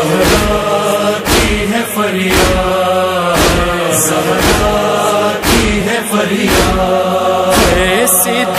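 A chorus of voices chanting a noha, a Shia lament, with a steady beat striking about once a second.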